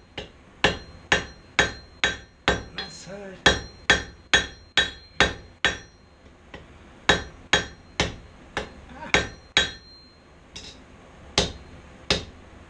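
Hand hammer striking red-hot steel on an anvil, about two blows a second with short pauses about six and ten seconds in. Each blow carries a brief metallic ring. The smith is drawing the steel out into a tapered rat tail.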